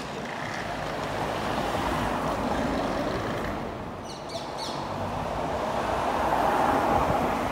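Street traffic noise as vehicles pass, swelling about two seconds in and again louder near the end, with a few brief high chirps about four seconds in.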